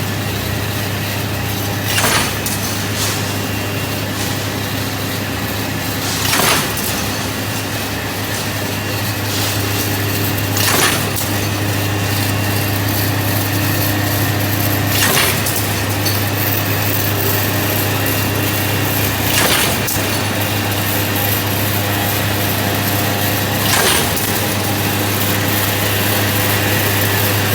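CNC rebar and steel wire straightening and cutting machine running with a steady low hum and hiss as the wire is fed and straightened. A sharp cutting clack comes about every four seconds as the cutter shears off each length.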